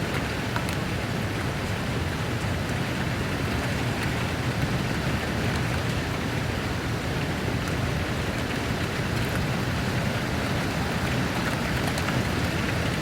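Steady rainfall, a constant hiss of rain with scattered faint drop ticks.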